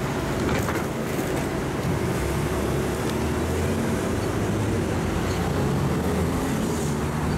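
A steady low rumble, like a vehicle running, with no clear separate events.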